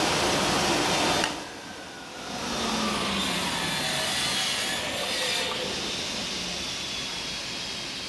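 Spindle shaper with a power feeder running a board past a glue joint cutter, a loud steady cutting noise that stops sharply about a second in. A quieter machine hum with a slowly falling whine follows.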